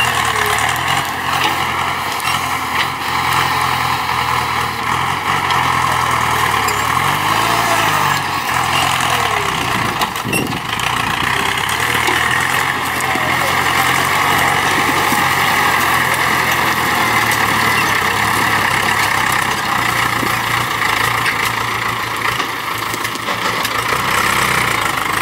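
Ford 6610 tractor's diesel engine running as it works a sugarcane grab loader, its pitch stepping up and down several times as the revs change. A single knock about ten seconds in.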